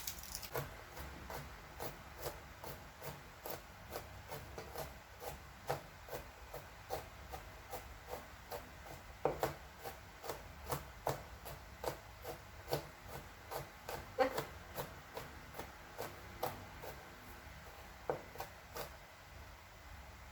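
Knife slicing beef thin on a wooden cutting board, with a steady run of short knocks as the blade strikes the board, about two strokes a second, and a light rasp between strokes.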